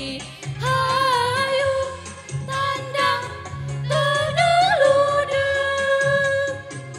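Women's choir singing, with long held notes, some wavering with vibrato.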